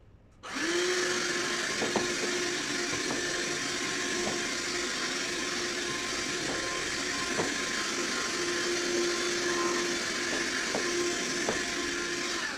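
Handheld vacuum cleaner switched on about half a second in, its motor spinning up to a steady whine with a strong rush of air. It runs evenly over the carpet, with occasional short ticks as bits are drawn in.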